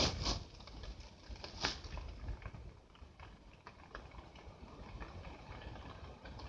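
Faint rustling with a few soft ticks and taps, two near the start and one a little under two seconds in: small movements and handling inside a fabric hunting blind.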